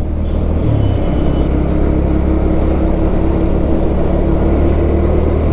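Bajaj Pulsar NS160's single-cylinder engine running steadily under way, with wind noise. The bike is nearly out of its one litre of test fuel, and the rider says the engine is starting to choke.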